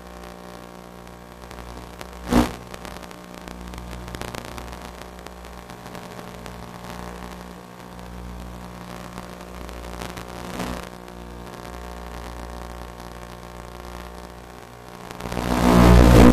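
Onboard recording of an FPV model plane's electric motor and propeller running steadily under a hiss, with a short loud burst about two seconds in and a loud swelling rush near the end.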